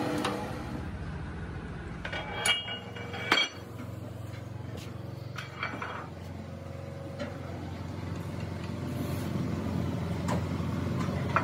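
Steady low hum of workshop machinery with a few sharp metallic clanks that ring briefly as steel parts are handled, the two loudest about two and a half and three and a half seconds in, fainter knocks later.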